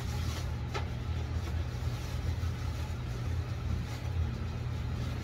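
Cardboard box and styrofoam packaging being handled, with a sharp knock about a second in, over a steady low machine hum.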